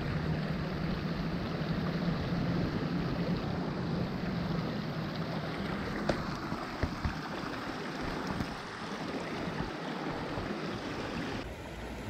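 Swollen mountain creek rushing steadily after heavy rain, with a low hum in the first half and a few faint clicks around the middle. The sound changes abruptly near the end.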